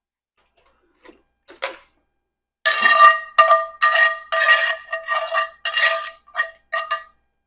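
A metal utensil scraping sauce out of a pan in about ten quick strokes, the pan ringing with each stroke, after a few faint clicks.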